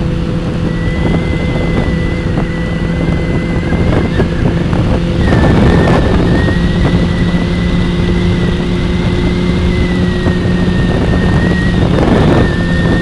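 Motorcycle engine running steadily at cruising speed, heard from on the bike, with wind buffeting the microphone and a thin, steady high whine over it.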